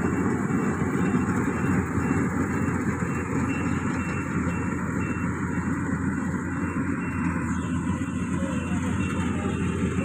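Yanmar YH700 rice combine harvester running steadily at work, its diesel engine and threshing machinery making an even, unbroken drone. A faint high beep repeats about twice a second in the background from a few seconds in.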